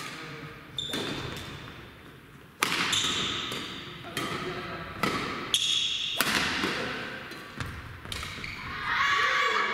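Badminton rackets striking a shuttlecock in a doubles rally: sharp hits at uneven intervals of about a second, each ringing on in a large hall. A voice calls out near the end.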